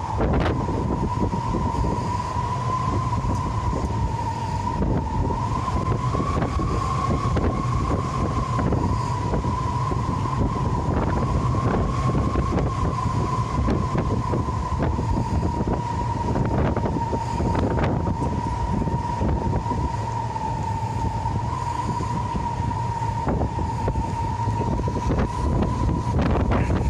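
Jet cargo plane's engines running with a steady high whine that wavers slightly in pitch, over a heavy low rumble of wind buffeting the microphone.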